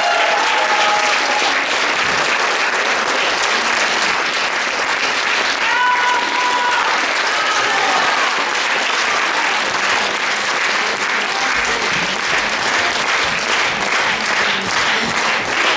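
Audience applauding steadily, with a brief voice heard above the clapping about six seconds in.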